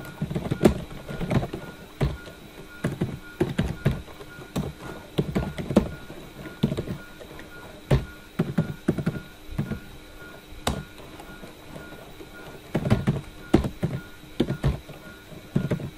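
Computer keyboard typing: irregular runs of keystrokes with short pauses between them and a longer pause about two-thirds of the way through, over a faint steady hum.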